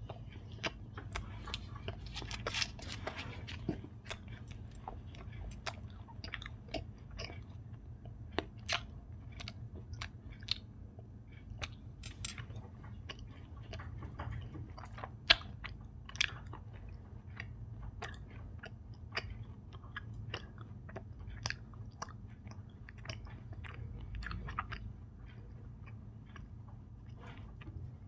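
Close-miked chewing of Indian sweets: frequent small wet mouth clicks, smacks and light crunches, denser about two to three seconds in.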